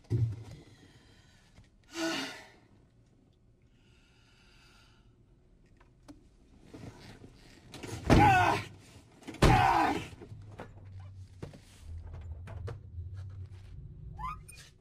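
A man sobbing and crying out in anguish, with two loud wailing outbursts about eight and nine and a half seconds in, and a car door being opened as he climbs out.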